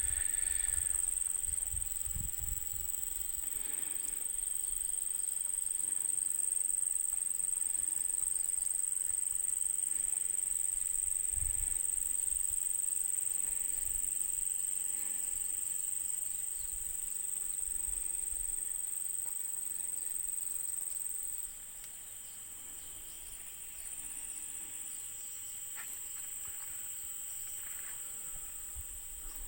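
Steady high-pitched drone of a chorus of insects, with low rumbles of wind on the microphone now and then. About twenty seconds in, the drone drops abruptly quieter and carries on.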